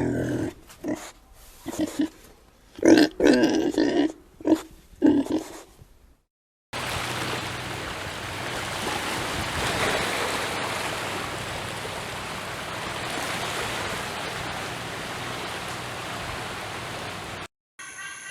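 An animal grunting in a series of short calls for about six seconds. After a brief break comes about ten seconds of steady rushing noise.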